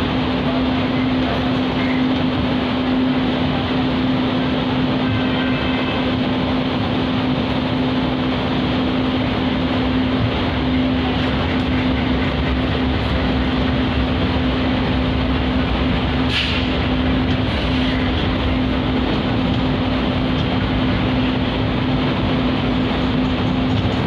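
Passenger train coaches rolling past alongside a platform: the steady rumble and rattle of wheels on the rails, with a steady low hum underneath. About two-thirds of the way through, a brief high-pitched squeal stands out.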